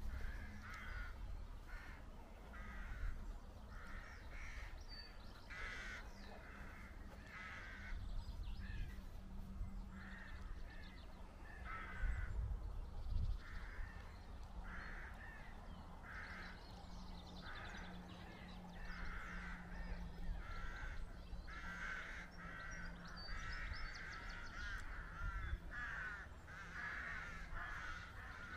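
A colony of rooks cawing, many calls overlapping with barely a gap, busiest near the end, over a low rumble.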